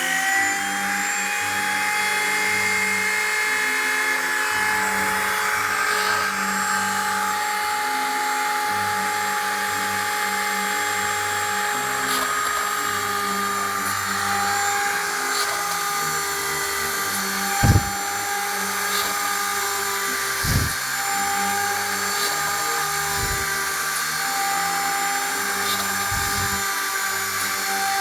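Hobby mini rotary tool of a homemade CNC PCB drill, spinning at steady speed with a high whine. Lower hums shift in pitch about once a second as the machine's stepper motors move. Four brief swooping sounds come in the second half.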